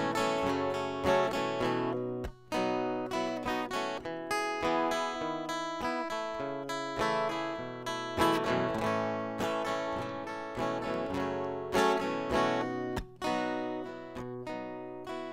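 Acoustic guitar with a capo, strummed chords ringing on with no voice: the instrumental introduction to a song.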